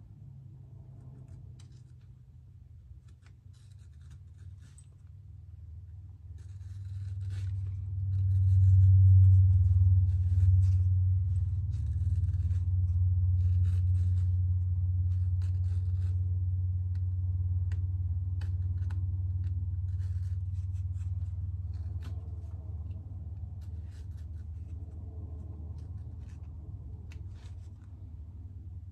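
Razor blade slicing off the excess wet goatskin around a banjo head, in short, faint scratchy cuts. Under it runs a low hum that swells about eight seconds in and then slowly fades.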